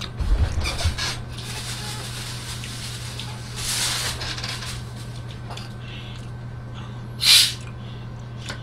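Plastic cola bottle's cap twisted open, letting out a short sharp hiss of carbonation about seven seconds in. Before it, a few low thumps and a longer rustle, over a steady low hum.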